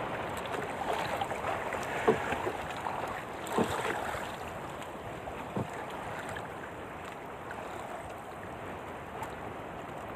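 Choppy sea water sloshing and lapping against a small wooden paddle boat's hull in strong wind, a steady rush with a few light knocks in the first half.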